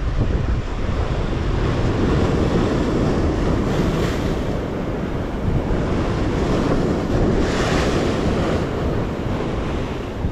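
Heavy surf breaking and washing over the rocks of a jetty, with two louder surges as waves crash, and wind buffeting the microphone.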